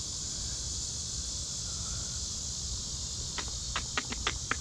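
Steady high-pitched drone of summer insects with a low rumble underneath; from about three seconds in, a run of short sharp clicks, roughly three a second.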